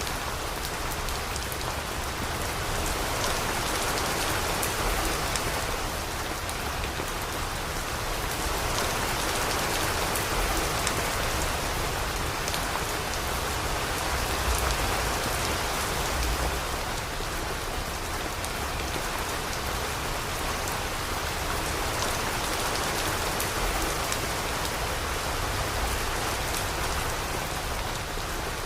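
Steady rain falling on surfaces, a dense patter of drops that swells and eases slightly every few seconds.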